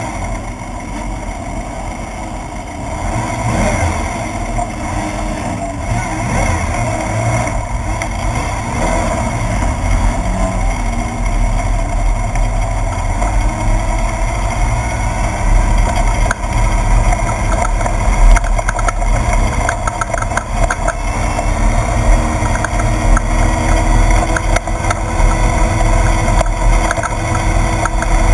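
Class 1/2-1600 desert race buggy's air-cooled 1600cc VW engine running hard, its pitch rising and falling over and over under a heavy low rumble. From about halfway through come many quick clicks and rattles.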